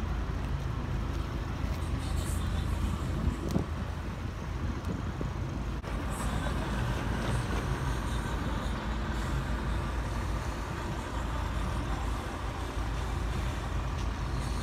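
Truck diesel engines running steadily as a low rumble, with a few short clicks and hisses. The sound changes abruptly about six seconds in.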